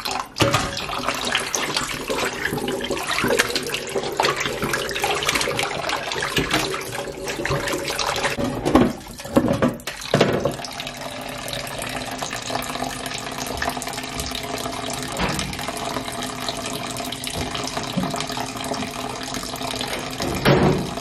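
Kitchen tap running into a metal pot of raw chicken pieces in the sink, splashing unevenly as hands rub and rinse the chicken. After about ten seconds the stream pours more steadily into the filling pot.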